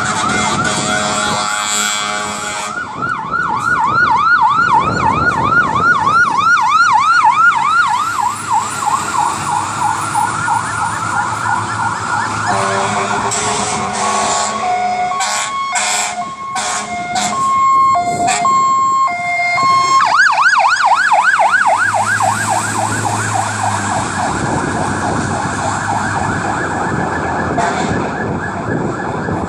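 Fire apparatus electronic siren in a fast yelp, switching in the middle to an alternating two-tone hi-lo for several seconds, then back to the yelp, easing off slightly near the end.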